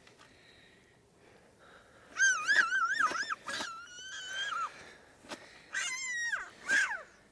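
A dog whining: high-pitched, wavering whines in two bouts, the first starting about two seconds in and the second near the end.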